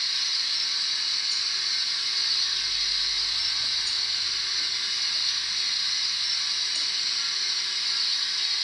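Steady steam hiss from a model steam locomotive's digital sound decoder, the recorded sound of a GWR 28xx 2-8-0 played through a small tender speaker.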